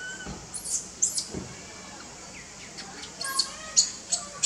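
Short, very high-pitched animal squeaks, each a quick rise and fall, coming in two bunches: a few about a second in and a faster run of them from three seconds on.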